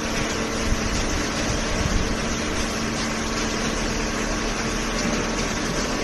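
Horizontal hydraulic baler and shredder line running: steady machine noise with a constant hum in a few fixed tones.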